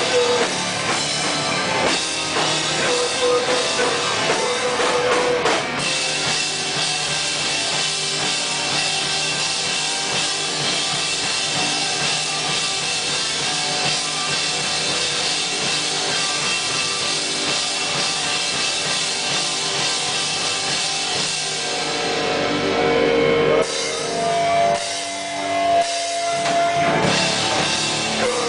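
Sludge metal band playing live and loud: distorted guitars over a drum kit in a dense wall of sound. Near the end the music thins to a break of separate hits before the full band comes back in.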